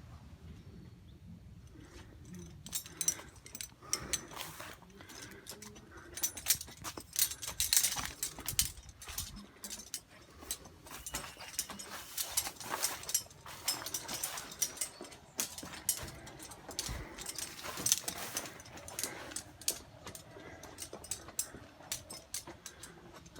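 Irregular clicks, rattles and knocks, starting about two and a half seconds in and coming in clusters, with no engine running.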